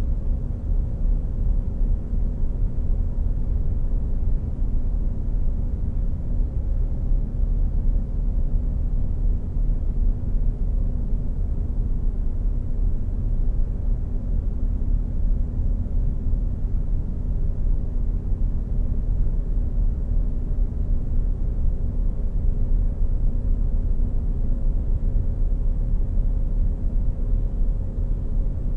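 A steady, low rumbling drone with a faint constant hum, unchanging throughout.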